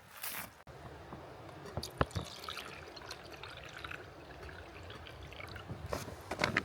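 Water trickling and dripping, with scattered small clicks and a sharp click about two seconds in.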